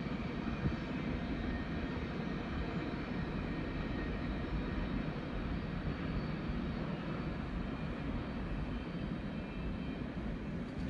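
Kansas City Southern freight train rolling past, a steady low rumble that doesn't let up.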